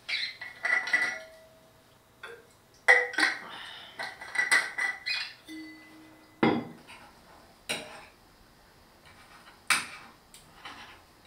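Fork and knife clinking and scraping against a plate as food is cut and eaten: a string of separate clinks and knocks, some with a short ringing tone.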